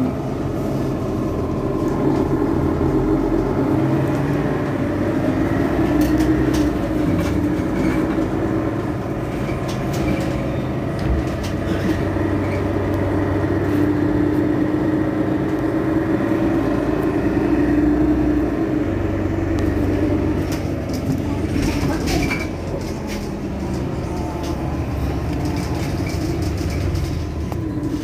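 Mercedes-Benz Citaro facelift city bus's engine running steadily at idle while standing at a stop.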